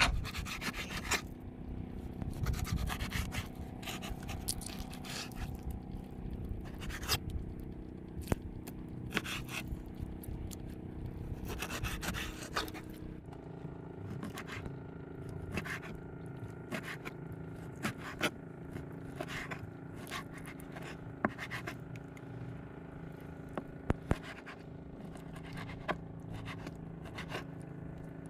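Kitchen knife slicing and chopping a raw mullet fillet on a plastic cutting board: irregular scrapes and taps of the blade on the board, over a steady low hum.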